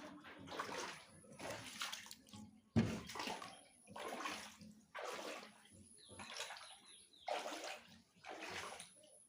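Floodwater splashing and sloshing in a regular rhythm, roughly once a second, with one louder, sharper splash about three seconds in.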